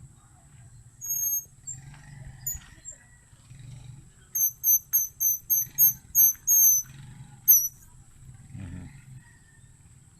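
High-pitched squeaks from air sucked inward through a wild flower held between the lips: a few single squeaks, then a quick run of about eight, roughly three a second.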